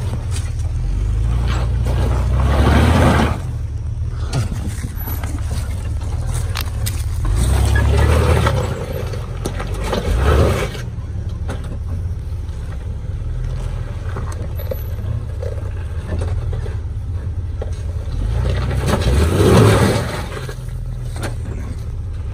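Jeep engine running under load as it crawls up a muddy rock climb, throttle pushed in surges about three, eight, ten and nineteen seconds in. Tyres scrape and knock over rock and mud.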